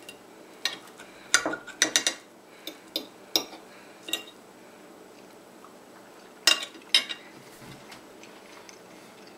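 Metal fork clinking and scraping against a plate while cutting a fried egg: a quick string of clinks over the first four seconds, then two more a few seconds later.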